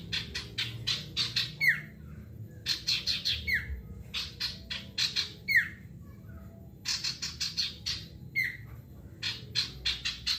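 Male common iora (sirtu) singing hard: bursts of rapid, sharp chipping notes, five runs in all. Four of the runs end in a quick falling whistle.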